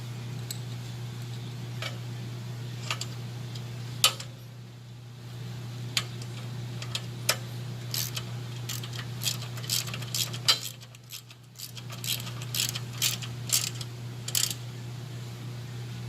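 Irregular metal clicks and clinks of tools and hardware as bolts and nuts are fastened, thicker in the second half, over a steady low hum.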